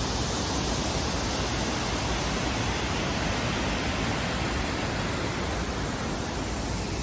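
Water rushing steadily over a low river weir, a constant even spray of falling water.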